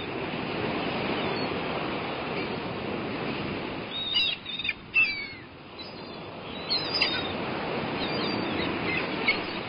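Birds chirping in short calls over a steady rushing background noise, with a cluster of chirps a little before the middle, another around seven seconds in and a few more near the end.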